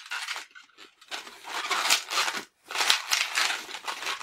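Hands rubbing and twisting an inflated latex 260 modelling balloon, giving scratchy rubbing and rustling noises in uneven bursts, with a brief break about two and a half seconds in.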